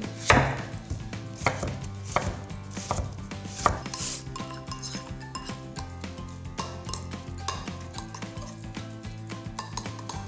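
Food being prepared by hand: sharp, irregular knocks of a knife chopping onion on a cutting board, with ingredients going into a glass mixing bowl. The knocks come thickest in the first four seconds and then thin out.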